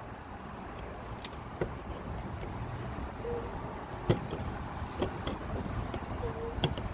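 A few small clicks and knocks from handling the door handle and key cylinder parts in a car door, the sharpest about four seconds in, over a steady low background rumble.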